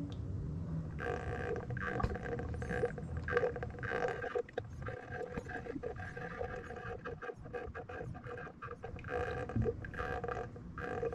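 Automatic transmission fluid glugging out of a plastic quart bottle into a funnel, a quick, uneven run of gurgles as air gulps back into the bottle.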